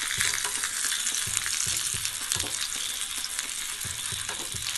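River fish shallow-frying in hot oil in a nonstick pan: a steady crackling sizzle, with scattered soft knocks and scrapes of a spatula as the fish are turned over.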